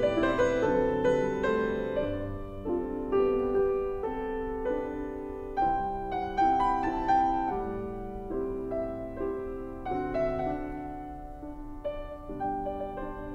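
Background piano music, a melody of single notes over held chords.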